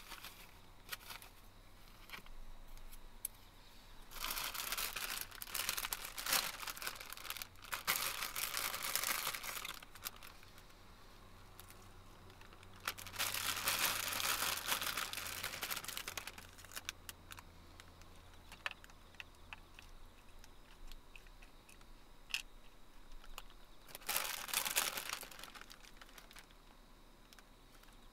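Crinkling and rustling of packaging being handled, in three spells: a long one starting about four seconds in, another in the middle and a short one near the end, with small clicks and taps in between.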